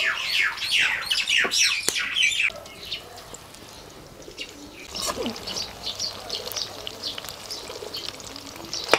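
A bird chirping in quick, falling calls for the first two and a half seconds. Under and after it, battered baby corn sizzles and crackles in hot oil in an iron wok.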